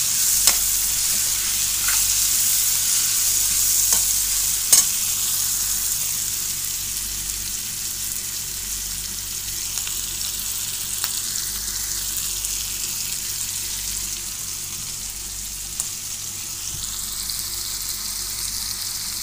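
Sliced onions and tomatoes sizzling in hot oil in a metal pan while a steel spoon stirs them, with a few sharp clicks of the spoon against the pan in the first few seconds. The sizzle runs steadily and grows slightly quieter after about five seconds.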